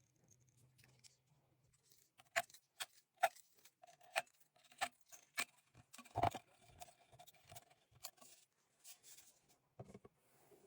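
A run of sharp clicks and taps from small hard objects being handled, about two a second for several seconds, with one heavier knock about six seconds in.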